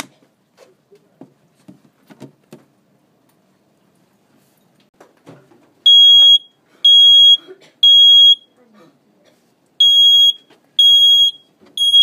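Homemade burglar alarm built from a smoke-detector circuit board and piezo horn, tripped by pulling out a paper strip. It sounds the high-pitched smoke-alarm beep in two groups of three. Faint handling clicks come before the first beep, about halfway in.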